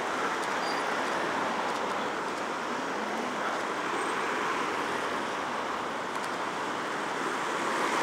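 Steady road traffic noise from cars passing on a busy city road, an even hiss with no single vehicle standing out.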